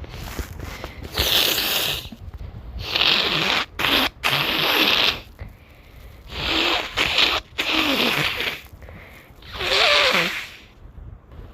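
A person blowing their nose repeatedly: about six or seven forceful blows of roughly a second each with short pauses between, the last with a wavering voiced hum.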